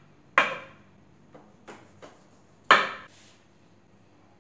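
Large kitchen knife slicing a chilled boiled beef eye of round and knocking on the cutting board: two sharp knocks, one just after the start and one a little past halfway, with a few faint taps between.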